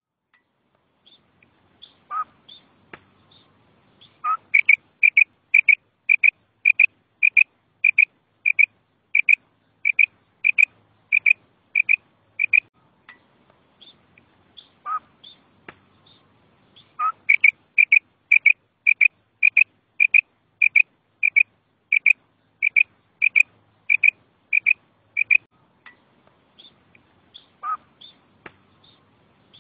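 A female Coturnix quail (batair) calling: runs of short, clipped, high notes at about one and a half a second. Each run opens with a lower note and a few fainter higher notes, and the run comes twice with a pause of a few seconds between.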